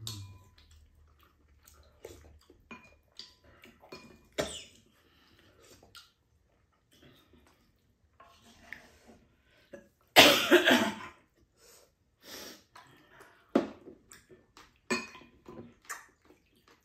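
Table eating sounds: short clicks of spoons and chopsticks against bowls and a pan. About ten seconds in comes a loud cough lasting about a second.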